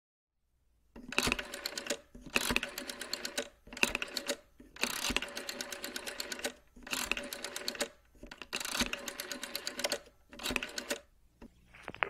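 Rotary telephone being dialled: about seven digits, each a burst of clicking as the dial runs back, the bursts of different lengths with short pauses between them, starting about a second in.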